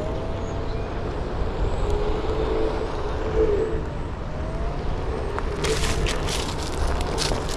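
Home-built VESC one-wheeled board rolling, its hub motor giving a faint whine that glides up and down in pitch with speed over the rumble of the fat tire on the pavement. About six seconds in, a run of crackles and clicks as the tire rolls over dry leaves on the concrete sidewalk.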